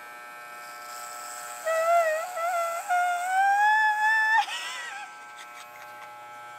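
Corded electric hair clippers buzzing steadily as they shave a man's head. From about two seconds in, a louder, long, high whine rises in pitch over the buzz and breaks off a little past the middle.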